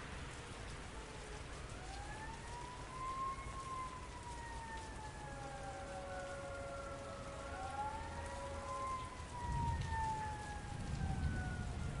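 Steady rain falling in a city street, with a siren wailing over it in two slow rise-and-fall sweeps. A low rumble swells up near the end.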